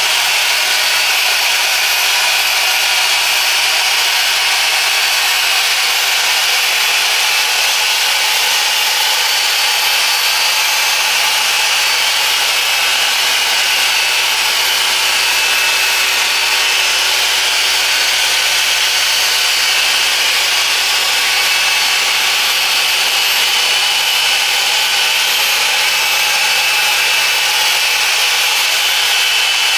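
Machine polisher running steadily with its pad rubbing over car window glass during glass polishing; an even, unbroken whirr with a few constant high tones and no change in speed.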